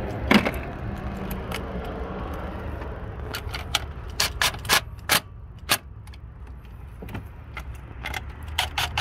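Scattered sharp metal clicks and clinks of hand tools: a 10 mm socket taken from a plastic socket-set case and a cordless ratchet with an extension being handled and set onto a nut. The clicks are thickest between about three and six seconds in, with a single louder click near the start.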